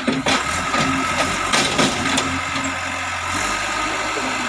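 JCB 3DX backhoe loader's diesel engine running steadily, with a few sharp knocks in the first two seconds.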